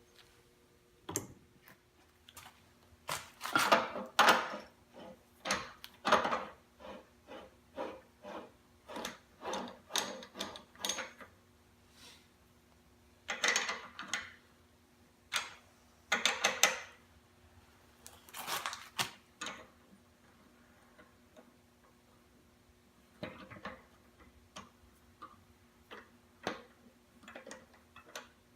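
Wood lathe running with a faint steady hum while a turning gouge makes short, irregular cuts into a spinning walnut bowl blank, each cut a brief scraping hiss with pauses between.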